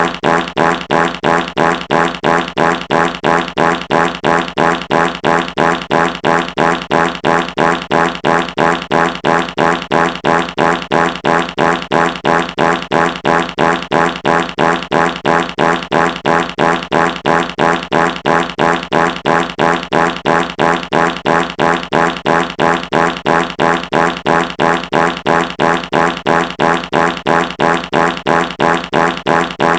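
Fart sound effect: a buzzy, pitched blast repeated in a fast, perfectly even loop, several short pulses a second without a break.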